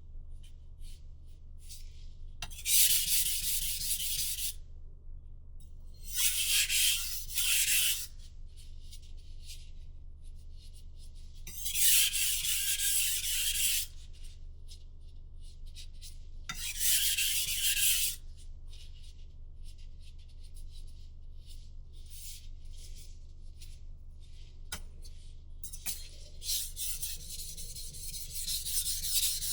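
Knife blade pushed slowly across a whetstone in long, separate scraping strokes, each a second or two long and several seconds apart, over a steady low hum.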